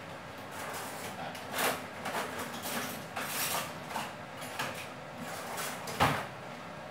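Kitchen utensils and containers being handled: a series of short scrapes and rustles, then a sharp knock about six seconds in.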